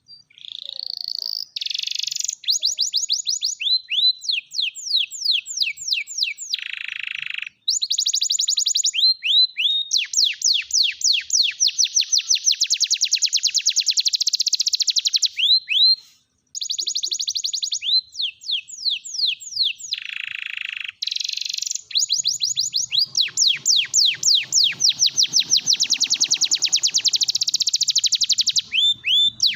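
Domestic canary singing a long song of rapid trills: quick runs of repeated falling notes, with a few lower buzzy rolls and two brief pauses.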